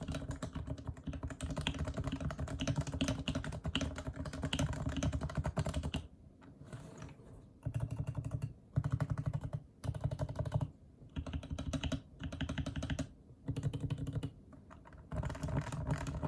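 Typing on a Leopold FC660C keyboard with unsilenced 45g Topre rubber-dome switches, lubed. Rapid, dense keystrokes for about six seconds, then a short pause, then bursts of typing about a second long separated by brief gaps.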